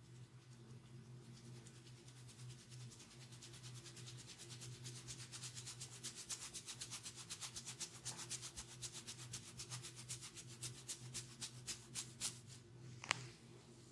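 A masseur's hands rubbing briskly over bare skin in quick rhythmic strokes, several a second, growing faster and louder after the first few seconds. One sharp snap comes near the end.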